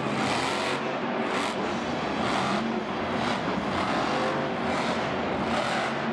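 Monster truck's supercharged big-block V8 engine revving hard, surging up and down about once a second.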